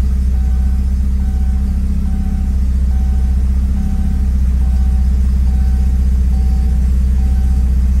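Porsche 944's four-cylinder engine idling steadily, heard from inside the cabin: it is running again after a no-start caused by a failed fuel pump, now replaced. Over it a warning buzzer beeps evenly, about once every three-quarters of a second.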